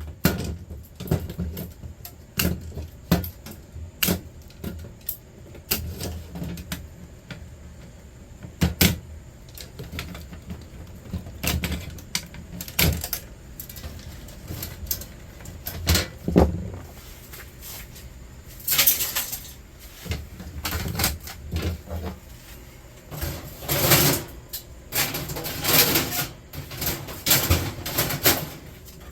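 Scrap metal being handled and sorted by hand: irregular clinks, knocks and clatters as pieces are pulled apart and tossed onto scrap piles, busiest in the last third.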